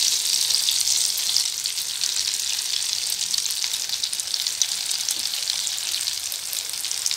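Beaten egg drizzled into hot oil in a frying pan, sizzling and crackling steadily as it fries into a lacy net.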